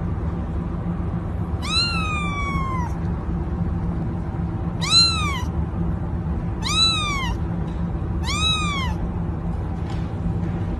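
A cat meowing four times, each call rising then falling in pitch, the first one longer with a drawn-out falling tail. A steady low hum runs underneath.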